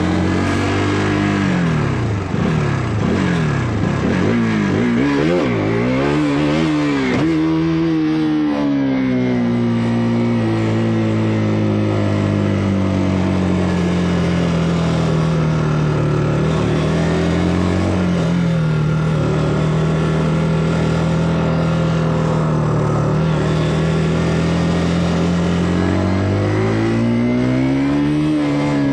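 KTM RC 200's single-cylinder four-stroke engine through its stock exhaust, under way: the revs climb and drop quickly several times, then hold fairly steady for a long stretch before climbing again near the end.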